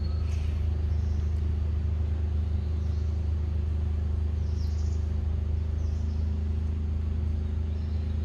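Steady low droning hum, unchanging throughout, with a few faint high bird chirps.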